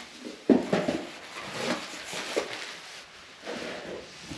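Cardboard shipping box being handled and opened by hand: a sharp knock about half a second in, then scattered scraping and rustling of the cardboard.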